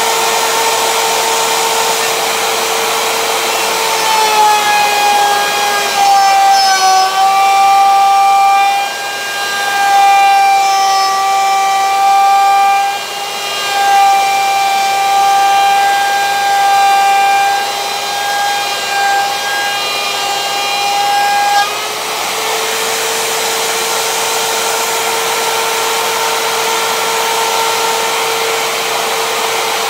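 Electric router in a benchtop router table running with a steady high whine. About four seconds in its pitch drops as a pine board is fed through the bit to rout a slot; the cut runs to about 22 seconds in, when the pitch rises back to free-running speed.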